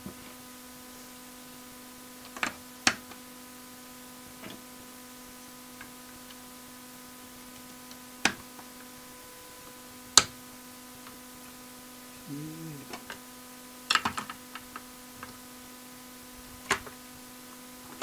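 Plastic keys of an Alesis V49 MIDI keyboard clicking into place on the key frame as they are refitted by hand: scattered sharp clicks, with a quick run of them about fourteen seconds in, over a steady electrical hum.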